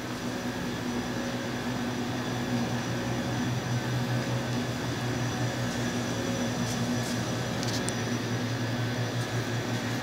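A steady low machine hum with a faint hiss, unchanging throughout, with a few faint ticks about seven to eight seconds in.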